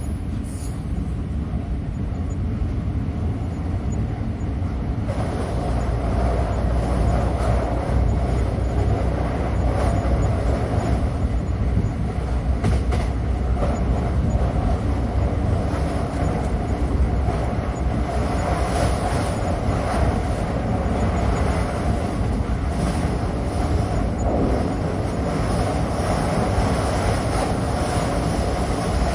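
Train running along the track: a steady rumble and rail noise that grows louder about five seconds in, with a few faint clicks from the wheels.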